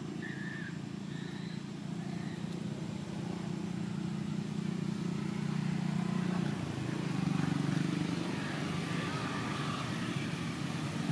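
A steady low engine drone, a motor vehicle running nearby, slowly growing louder. In the first couple of seconds a few short, high squeaks come from a baby macaque.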